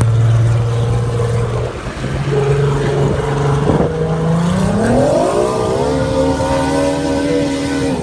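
Formula 1 powerboat's two-stroke V6 outboard engine running steadily at low revs, then revving up smoothly about halfway through and holding a higher pitch as the tunnel-hull boat accelerates away.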